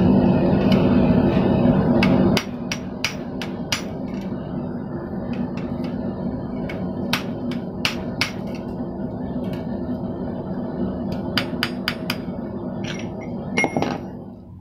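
Hand hammer striking forged steel in irregular single blows and quick pairs, as a forged candle cup and its leg piece are hammered together. A steady drone underlies it, louder for about the first two seconds.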